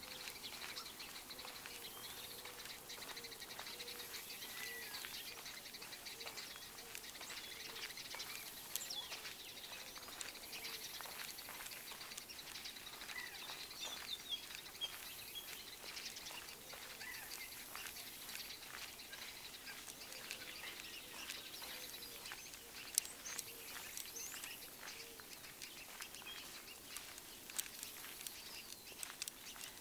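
Small birds chirping and singing in short calls, over a faint steady hiss with scattered light clicks.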